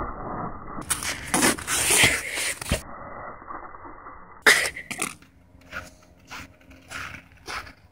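A person coughing and spitting, hoarse bursts over the first few seconds. Then scattered short scuffs and knocks.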